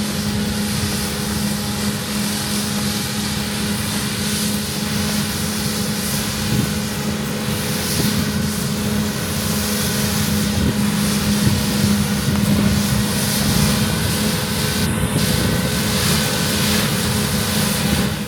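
Claas Lexion combine harvester running steadily in the field, a constant loud drone with an unchanging hum.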